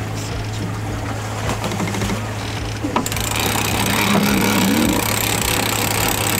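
Sailing boat's engine running steadily with a constant low drone and rattle; about three seconds in, a loud hiss joins it.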